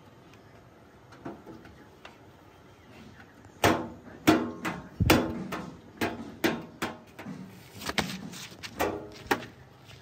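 About a dozen sharp knocks, each with a brief ring, as a cloth is slapped and wiped across the sheet-metal bonnet of a Swaraj 843 XM tractor. They start about three and a half seconds in and come irregularly, one or two a second.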